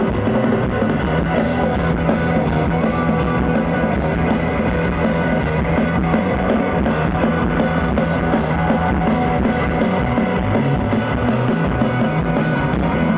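Rock band playing live, with electric guitars and a drum kit.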